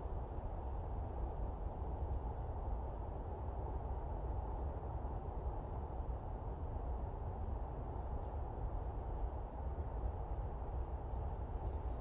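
Wind blowing steadily through eastern white pines: a low, even rush with no gusts standing out. Faint, very short high-pitched sounds are scattered through it.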